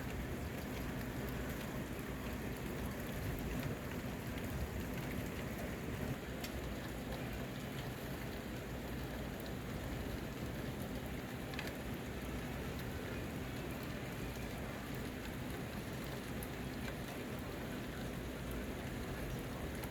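Steady rain falling, with a couple of sharp ticks standing out.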